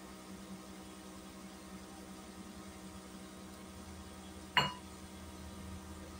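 Steady low mechanical hum, with one sharp click about four and a half seconds in.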